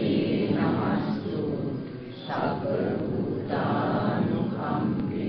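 A man's voice chanting a Buddhist devotional recitation, with a couple of short pauses for breath.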